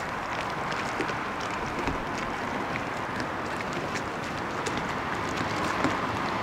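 Steady running noise of a distant JR 381 series electric train on its line, mixed with road traffic, with a faint steady whine that grows a little near the end.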